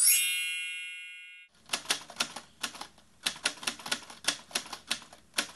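An intro sound effect: a bright chime rings and dies away over about a second and a half, then typewriter keys clack at about four strokes a second.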